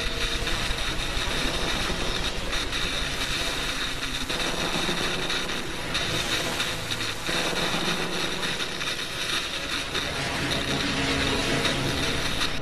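Stage performance soundtrack: a dense, steady wall of machine-like electronic noise with a low rumble and a bright hiss.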